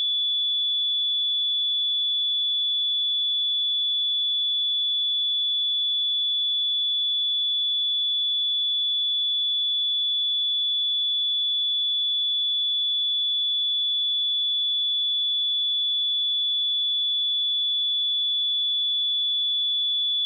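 Steady, unbroken pure sine-wave test tone at 3445 Hz, a single high-pitched note held at constant level.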